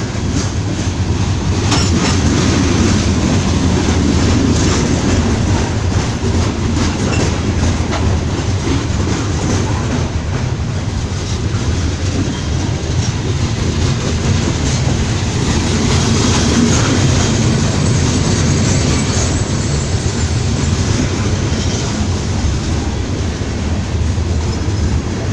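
Coal hoppers and cement cars of a Norfolk Southern freight train rolling steadily past, with a low rumble of wheels on rail and a clickety-clack over the rail joints.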